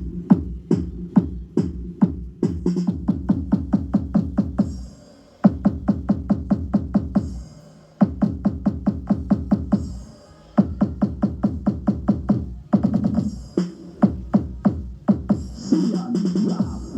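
Electronic dance music with a fast drum-machine beat and heavy bass, played loud through a Storm 15 speaker on sound test. The beat cuts out briefly a few times.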